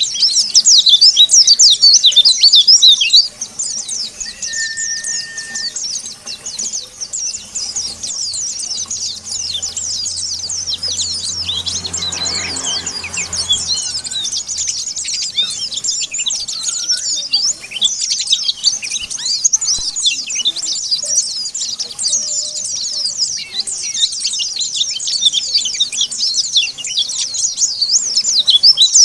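White-eyes (pleci, Zosterops) chattering in a dense run of rapid, high-pitched chirps that overlap without pause, loudest in the first three seconds.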